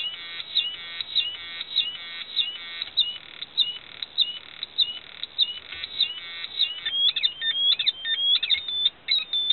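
Homemade transistor siren circuit modulated by a third astable multivibrator, sounding rapid high-pitched electronic chirps and bleeps. The pattern changes as the third multivibrator's frequency is switched: dense fast chirping at first, sparser bleeps from about three seconds in, then an irregular warble near the end.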